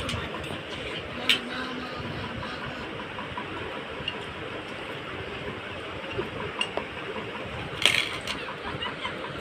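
Plates and forks clinking as people eat, with two sharp clinks about a second in and near the end, over a steady background hum.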